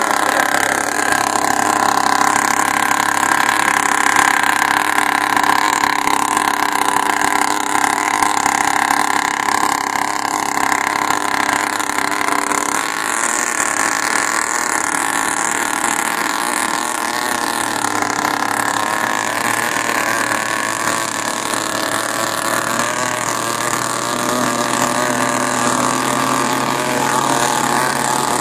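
Boat engines running steadily at speed, over a constant hiss of wind and rushing water. A higher engine note wavers in pitch about halfway through.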